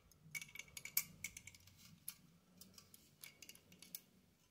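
Faint, irregular light metallic clicks and ticks as a tower CPU air cooler's aluminium heatsink and steel mounting brackets are handled and knocked together.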